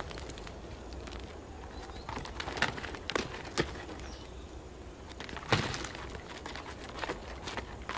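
Ibex hooves knocking and clattering on rock: scattered, irregular sharp clicks, the loudest about five and a half seconds in.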